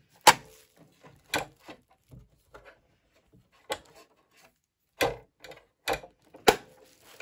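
Plastic front looper cover of a Juki MO-114D overlocker being handled and snapped shut: a handful of sharp clicks and knocks at irregular intervals, the loudest right at the start.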